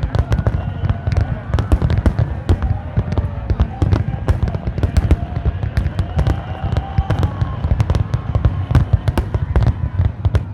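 Fireworks display: a dense, unbroken barrage of bangs and crackles, several a second, over a deep continuous rumble of booming shells.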